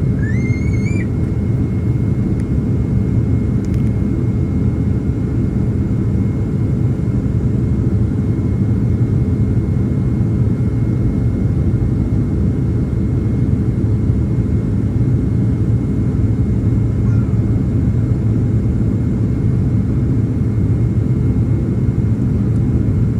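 Steady cabin noise inside a Boeing 767-300ER airliner on approach: an even, low rumble of engines and airflow. A brief rising whistle-like tone sounds in the first second.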